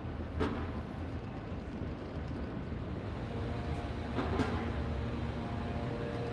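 Steady low rumble of city traffic, with a few short knocks and a faint steady whine that comes in about three seconds in.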